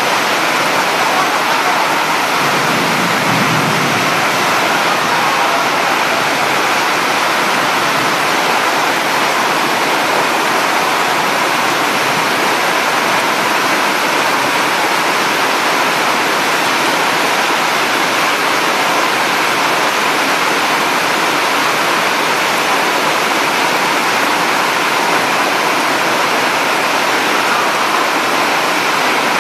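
Loud, steady rush of water in torrential rain, the wash of floodwater and downpour running on without a break.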